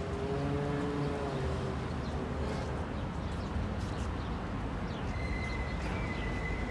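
City street ambience: a steady hum of passing traffic, with a held engine-like tone in the first second or two and a thin high tone near the end, plus short high chirps.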